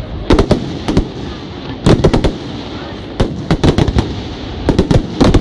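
Fireworks display: aerial shells bursting in quick clusters of sharp bangs, a volley every second or so.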